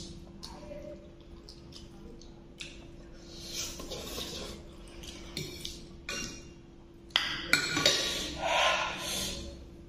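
Fork and spoon clinking and scraping on a plate as a person eats noodles, with soft slurps in between. The sharpest clinks come about seven seconds in.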